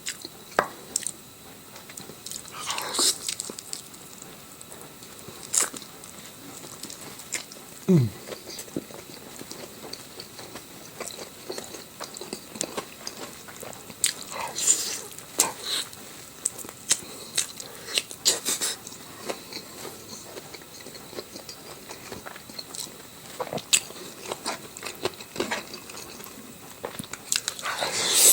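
Close-up mukbang eating: a person biting and chewing, with irregular crunchy, crackly bites and wet mouth clicks. A brief low sound falls in pitch about eight seconds in.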